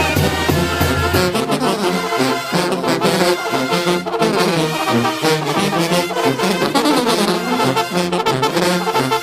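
Mexican brass band (banda) playing in the street: trumpets and horns over sousaphone bass, with a conga drum and a scraped güiro keeping the beat. A low held bass note stops about a second in, and the brass carries on in a bouncing rhythm.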